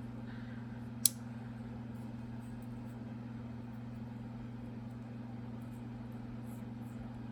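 Steady low hum in the room, with one sharp click about a second in.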